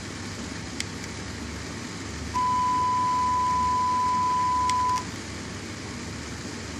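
A steady single-pitch test tone, used as a signal to drive the VU meters, sounds for about two and a half seconds starting a little over two seconds in, then stops. Behind it is a low hum and hiss.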